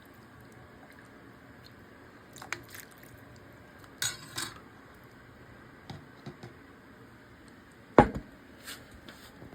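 Scattered clinks and knocks of kitchen utensils against pots and dishes, a few short taps spread out, with one sharp knock about eight seconds in.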